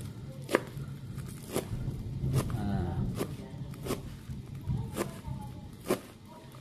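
Kitchen knife slicing spring onions on a plastic cutting board: irregular sharp chopping strikes, roughly one a second, the first about half a second in being the loudest.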